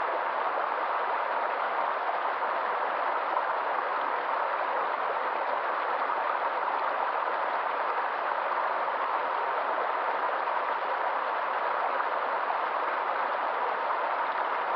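Steady rushing of flowing water, like a stream, with no breaks or changes.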